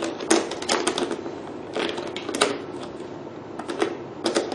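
Irregular sharp plastic clicks and taps, about nine in all and unevenly spaced, as parts of a beauty machine's handle holder are worked by hand and fitted in place.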